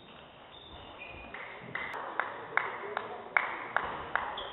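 Table tennis ball clicking against the bats and table, about two to three hits a second from roughly two seconds in, echoing in a large sports hall.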